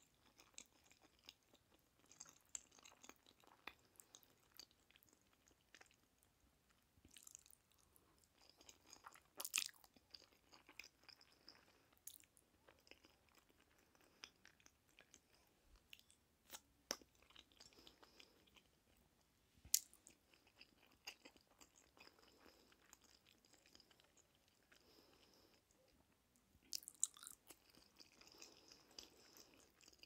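Quiet, close-miked chewing and wet mouth sounds of eating black-bean noodles (jajangmyeon), with scattered sharp clicks and smacks.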